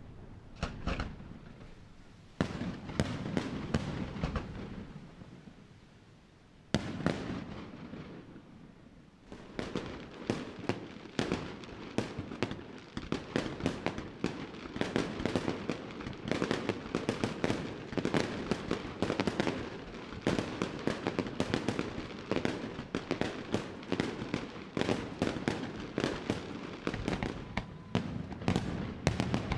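Fireworks display: a few spaced shell bursts with rumbling tails, a single loud bang about seven seconds in, then from about ten seconds on a dense, rapid barrage of bangs and crackles.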